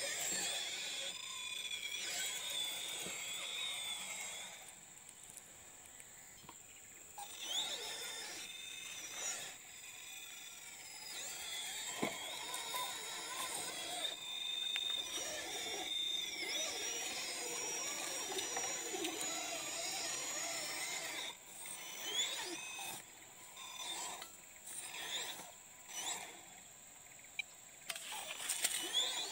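RC rock crawler's electric motor and geared drivetrain whining as it crawls over rock, the pitch rising and falling with the throttle. The whine stops and starts in short bursts in the second half.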